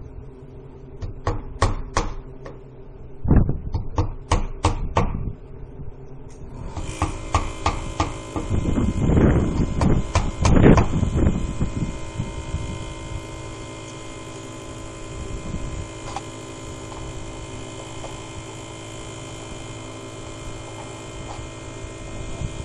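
Hammer knocking nails while vinyl siding is fixed to a shed wall: a run of sharp knocks over the first five seconds or so. After that comes a steady mechanical hum, with a few low, loud thumps a few seconds later.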